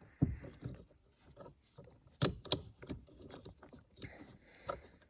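Irregular plastic clicks and knocks from a turn signal stalk's wiring plug being pushed and worked at its socket in a steering column, not seating.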